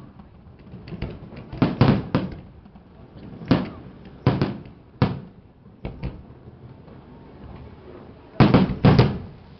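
Fireworks exploding: an irregular string of sharp bangs, some in quick pairs, with the two loudest near the end.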